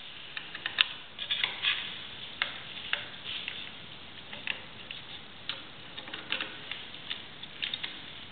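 Small, irregular clicks and scrapes of a screwdriver turning the screws of a double wall socket as it is fastened in place.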